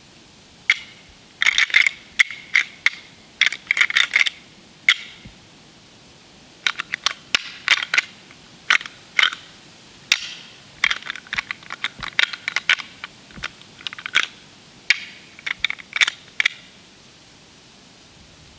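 A hand-held deer rattle is worked in bursts of rapid clattering clicks, mimicking two bucks sparring. It runs as a series of short rattling bouts with brief pauses between them, then stops near the end.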